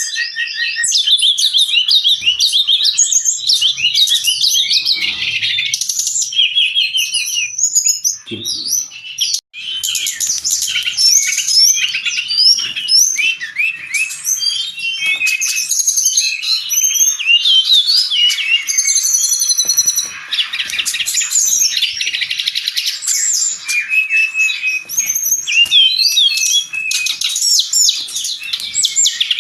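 Brown-chested jungle flycatcher singing continuously in a dense, rapid run of high chirps and warbled phrases, with a momentary break about nine seconds in.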